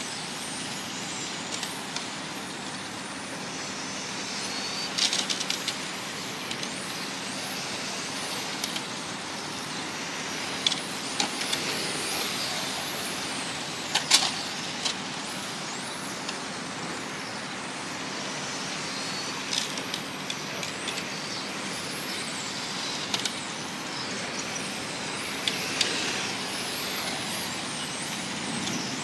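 1/10-scale electric touring RC cars racing, their motors whining in high pitches that rise and fall as they accelerate and brake through the corners. A few sharp clicks stand out, the loudest about halfway through.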